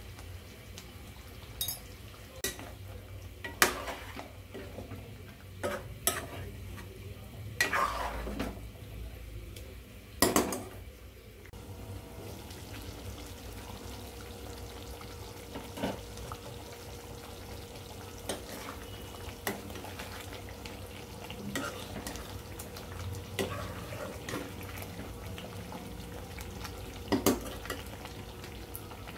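Spatula stirring chicken curry in a metal kadai, with irregular knocks and scrapes of the utensil against the pan over a steady low sizzle of the simmering gravy.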